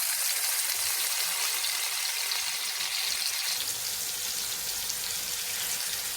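Marinated chicken pieces sizzling as they shallow-fry in a pan of hot oil: a loud, steady hiss that eases slightly toward the end.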